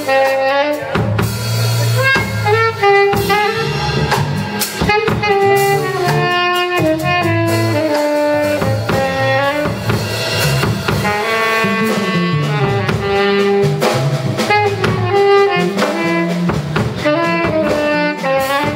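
Small live band playing: a saxophone carrying the melody over electric bass guitar and drum kit.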